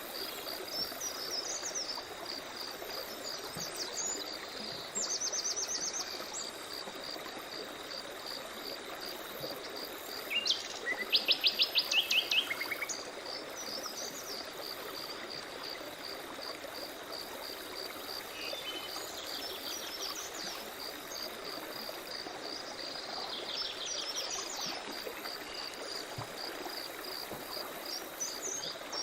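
Forest birds singing in short phrases, the loudest a rapid trill about eleven seconds in, over a steady insect chirping about twice a second and the even rush of a stream.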